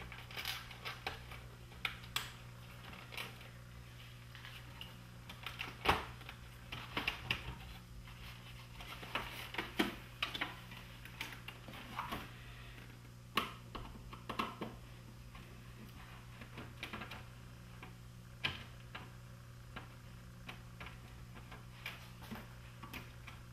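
Irregular clicks, clatters and knocks of hands and a screwdriver working on an opened cassette deck: wire clips and parts being pulled, the metal chassis being turned onto its side and set down. A steady low hum runs underneath.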